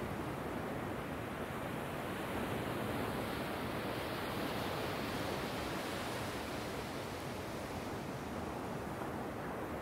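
Surf on a sandy beach: small waves breaking and washing up over the sand in a steady rushing hiss that swells about two seconds in and eases off near the end.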